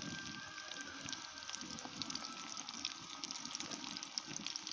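Diced potato, tomato and capsicum frying in oil in an aluminium kadai: a steady, quiet sizzle with many fine crackles.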